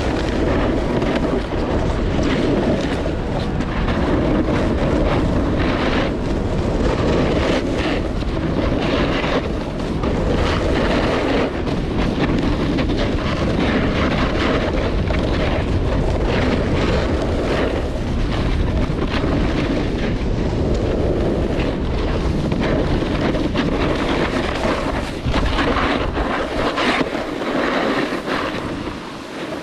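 Wind rushing over an action camera's microphone at speed on a snowboard run, mixed with the board scraping and chattering over packed snow. It quiets near the end as the board slows down.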